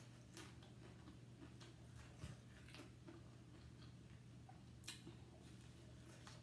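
Faint, irregular crunching clicks of nacho chips being chewed, over a steady low hum.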